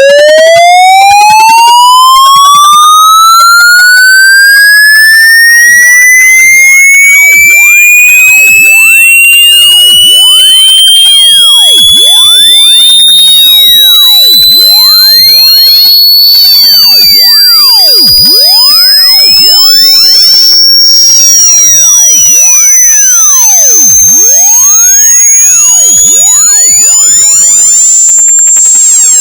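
A very loud electronic test tone sweeping slowly and steadily upward in pitch, from a middle pitch to a very high whine.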